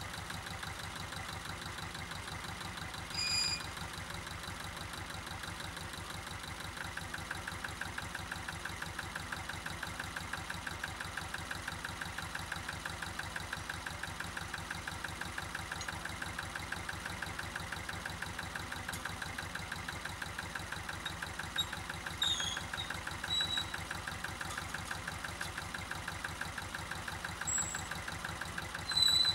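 Zetor 25A tractor's two-cylinder diesel engine idling with a steady, even beat. A few brief high-pitched chirps stand out above it, once about three seconds in and several times near the end.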